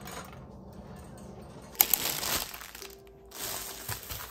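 Plastic packaging crinkling as a bag of bean sprouts is handled, starting suddenly about two seconds in and coming in two rustling spells, over soft background music.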